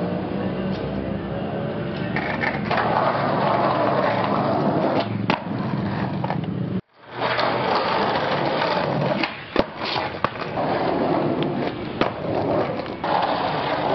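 Skateboard wheels rolling over rough concrete, with a few sharp clacks of the board striking the ground, the loudest about five and ten seconds in. The sound cuts out briefly about seven seconds in.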